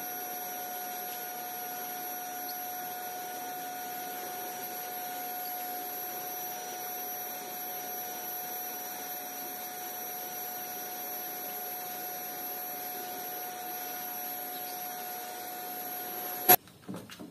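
Vacuum cleaner running steadily, a motor hum with a high whine, moving over a tiled floor. It stops abruptly with a sharp click near the end.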